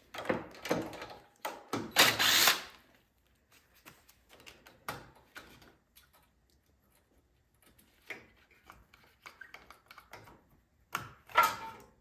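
Cordless impact driver running in several short bursts in the first few seconds, backing off the nuts that hold the carburetor on a snowblower engine. Light clicks and clinks of parts being handled follow, and another short burst comes near the end.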